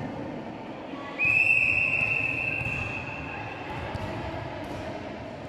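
A referee's whistle, one long high blast that fades out over about two seconds, ringing in a large sports hall. In volleyball this is the blast that signals the serve.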